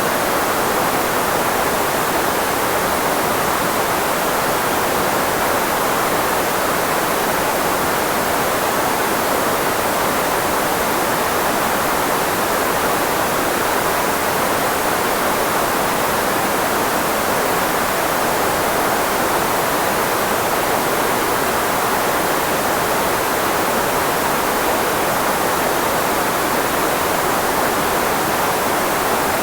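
Steady electronically generated noise, filtered so it is strongest in the range of the human voice, used as a speech blocker. An even, unchanging hiss.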